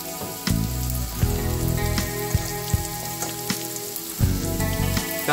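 Floured pork tenderloin medallions frying in hot olive oil in a pan: a steady sizzle with scattered sharp spits of oil, under background music.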